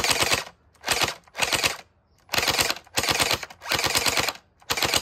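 Gel Blaster Starfire XL gel-bead blaster firing short bursts of rapid shots, a fast mechanical clatter. There are about seven bursts, each under a second long, with brief pauses between them.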